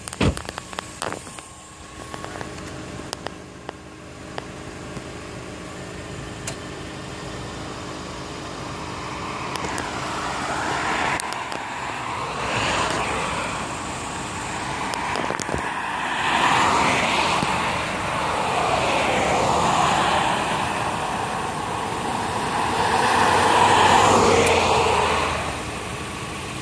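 Road traffic: several cars drive past one after another, each one swelling up and fading away. The last and loudest passes near the end.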